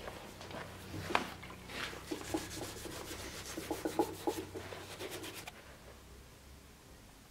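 Metal sword pommel being rubbed down by hand with an abrasive: a run of short rubbing and scraping strokes with small clicks, stopping about five and a half seconds in.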